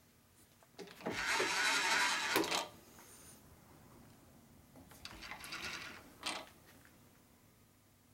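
Metal clicking and rattling from a dial indicator and its holder being mounted on a milling machine spindle and adjusted by hand. It comes in two bursts: a louder one of about two seconds near the start, and a shorter one past the middle.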